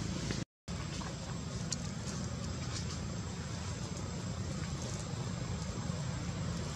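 Steady outdoor background rumble and hiss, cutting out briefly about half a second in, with a few faint clicks.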